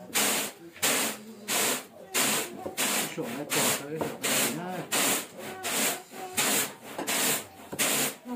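Steady, rhythmic scraping strokes, about one and a half a second, each a harsh hissing rasp, with faint voices in the background.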